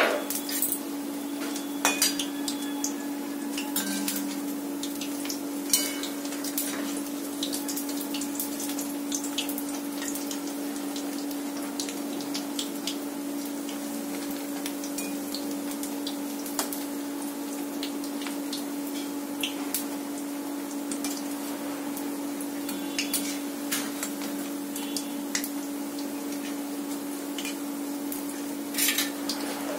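Battered water lily flower fritters frying in oil in a steel wok: a steady sizzle with small crackles throughout. A metal slotted spoon clinks against the wok now and then. A steady hum runs underneath.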